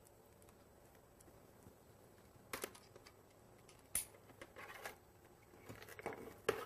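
Faint handling of phone cords and plugs, with two sharp clicks about a second and a half apart near the middle and lighter clatter toward the end: modular telephone plugs being handled and clicked into jacks on the station-port connector.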